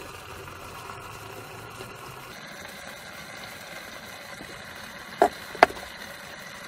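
Steady hiss of a gas hob burner under a stainless steel pot of simmering vegetables, with two sharp knocks about five seconds in, half a second apart.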